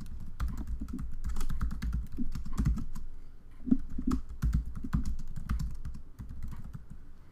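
Typing on a computer keyboard: a quick, uneven run of key clicks with soft low thumps, thinning out near the end.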